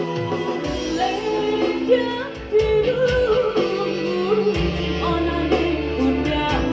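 Music with a singing voice carrying a wavering melody over sustained low bass notes that change every second or two.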